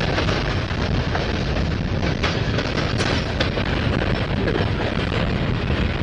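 Freight train of covered hopper cars rolling past close by: a steady heavy rumble of steel wheels on rail, with a few sharp clicks and clanks from the trucks.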